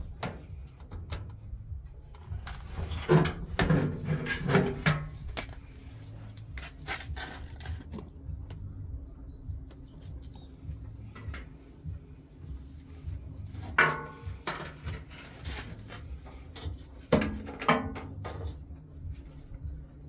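Knocks, clanks and rattles from a front-loading washing machine's sheet-metal front panel and cabinet being handled during a door-gasket replacement. The clatter comes in three bouts, about three seconds in, near the middle and near the end, over a low steady rumble.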